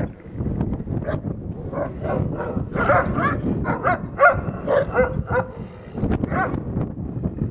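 Wolves calling in many short, quick yelps and whines, thickest in the middle of the stretch, during a squabble over the den where the dominant wolf keeps the others out.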